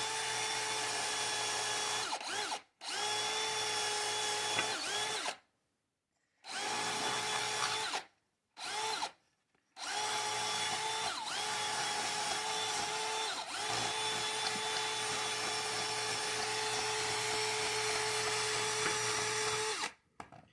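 Small handheld electric power tool running with a steady high-pitched motor whine. It is switched off and back on several times in the first half, including one very short burst, then runs for about ten seconds and cuts off just before the end.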